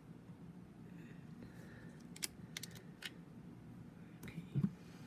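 Several light clicks and taps from card-making supplies being handled on a work table, with a louder dull knock near the end, over a faint steady low hum.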